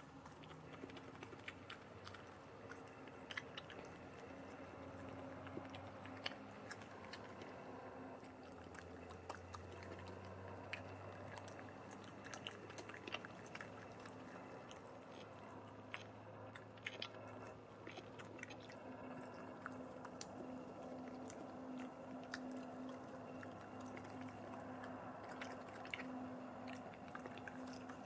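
European badger chewing and crunching chips close up, a run of quick, irregular wet clicks and crunches from its jaws, over a faint steady low hum.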